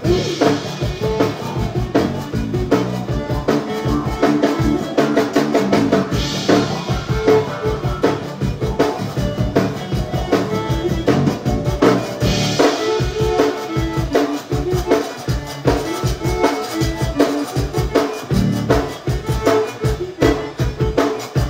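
Zydeco band playing an instrumental passage live, with a drum kit keeping a steady kick-and-snare beat under the other instruments. Cymbal crashes come about every six seconds: at the start, about six seconds in and about twelve seconds in.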